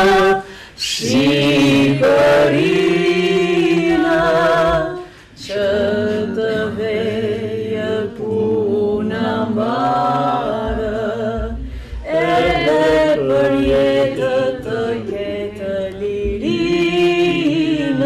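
Unaccompanied singing by a group of voices, in long held lines with vibrato, briefly breaking off about a second in and again around five seconds in.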